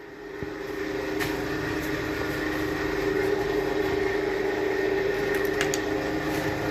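An electric kitchen appliance's motor spinning up over about a second and then running with a steady hum, with a few light clicks near the end.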